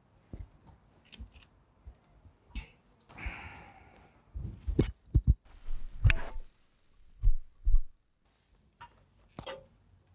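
Handling noises: a series of knocks and thumps as a painting on its board is set onto a black metal tabletop easel, with a short rustle of cloth about three seconds in.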